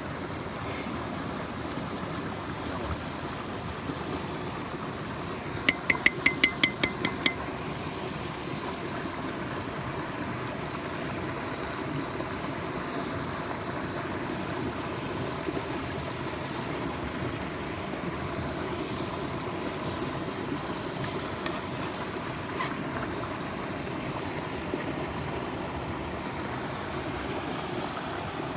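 Steady rush of a stream, with a quick run of about eight sharp clinks about six seconds in.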